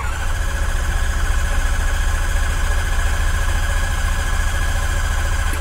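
Rotax 912-series aircraft engine being cranked over by its starter without firing, a crank test to prime the new oil pump and build oil pressure. It is a steady churn with a fast, even pulse and a high whine over it.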